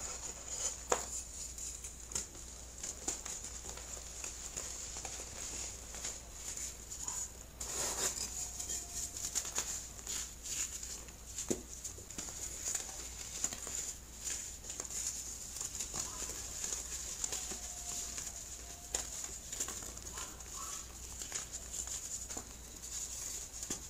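Hands crushing and crumbling dry, chalky blocks of baking soda: a continuous run of small crisp crunches and crackles, with crumbs pattering onto the pile.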